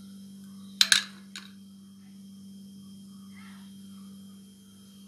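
Sharp clinks of stainless-steel puttu-making utensils: two close together about a second in and a lighter one just after, over a steady low hum.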